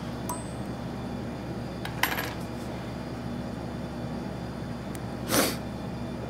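Light handling noises at a fly-tying vise as the thread is whip-finished at the fly's head: a faint click just after the start, a short rustle about two seconds in and a louder brief rustle about five seconds in, over a steady low hum.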